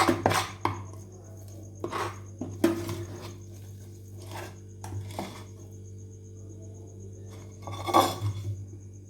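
Metal utensils clinking and scraping against a plate at irregular intervals as thick, hot jaggery candy mixture is spread and pressed flat, with a louder scrape near the end.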